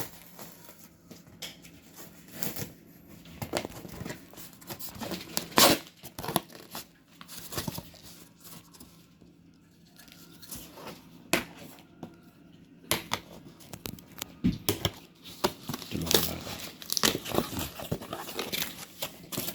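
Packaging of a small vacuum cleaner being torn open and handled: irregular tearing and crinkling, with a few sharp snaps.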